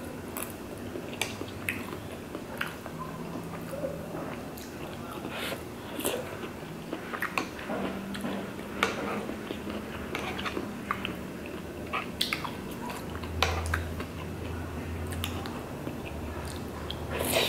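Close-up chewing and biting of tteokbokki rice cakes, wet mouth noises, with scattered sharp clicks of metal chopsticks against a stainless steel pan.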